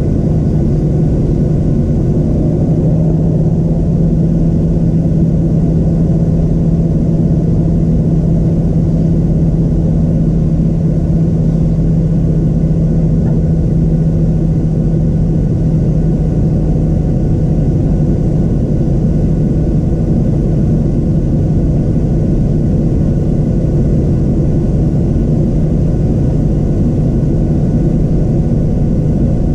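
Cabin noise inside a Boeing 737-700 taxiing, its CFM56-7B engines at idle: a steady low drone, with a hum that stands out for about the first half.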